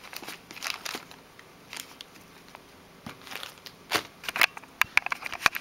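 Plastic packaging crinkling and small plastic bottles clicking and tapping as they are handled and set down, with a cluster of sharper clicks in the second half.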